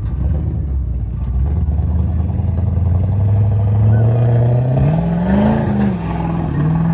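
An engine running and revving: its pitch climbs slowly, rises to a peak about five and a half seconds in, then drops back and holds steady.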